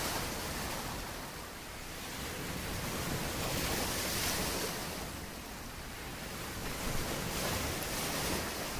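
Ocean surf washing on a beach, with wind on the microphone; the rush swells and eases over a few seconds, loudest around the middle and again near the end.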